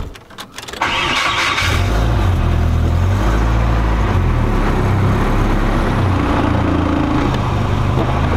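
Nissan 240SX engine started with the key: it fires about a second in with a short burst, then runs and idles steadily.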